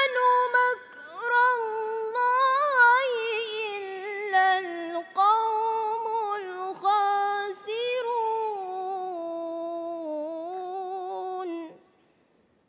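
A woman reciting the Quran in melodic tilawah style, her voice alone and unaccompanied. She holds long, ornamented phrases that waver in pitch, and her voice stops abruptly near the end.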